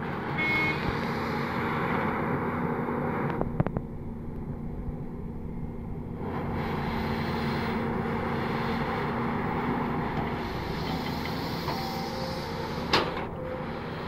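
Diesel engine of a Volvo crawler excavator working under load, a steady drone that swells and eases as the machine dumps, swings and digs. There is a short sharp knock at about three and a half seconds and another near the end.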